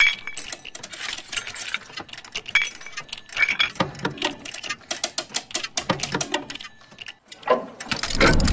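Trailer sound design: a rapid, uneven run of small mechanical clicks and ticks, like a ratchet or clockwork. A louder, fuller swell of sound comes in near the end.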